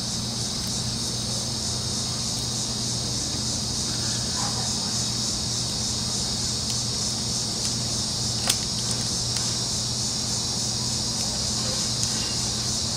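Steady, high-pitched chorus of insects chirping, with a low steady hum beneath it and a single sharp click about eight and a half seconds in.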